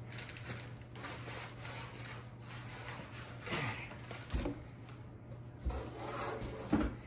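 Cardboard shipping box being handled and opened: continuous rubbing and scraping of cardboard, with a few dull thumps in the second half as the box is shifted and lifted.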